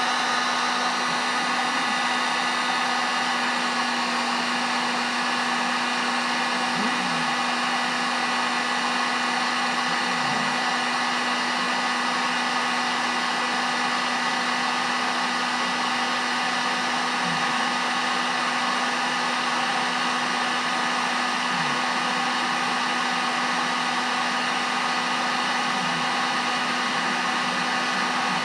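Electric heat gun blowing steadily, a constant rush of air with a motor hum, heating a solder-seal heat-shrink wire connector so that its built-in solder ring melts into the joined wires.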